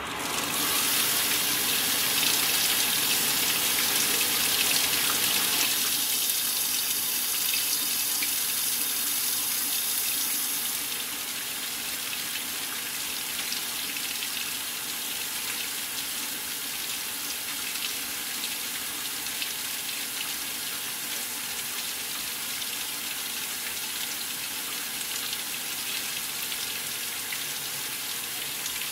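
Water rushing into the tub of a Maytag Centennial top-load washer through its fill valve as the delicate cycle begins filling. The sound is loudest and most hissing for about the first ten seconds, then settles to a steady, somewhat softer pour.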